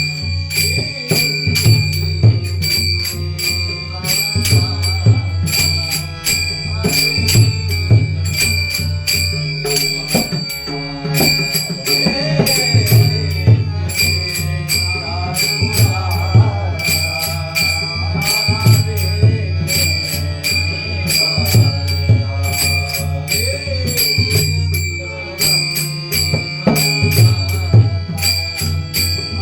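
Devotional bhajan music: small hand cymbals struck in a fast, steady rhythm with a ringing tone, over a low drum beat and melodic accompaniment.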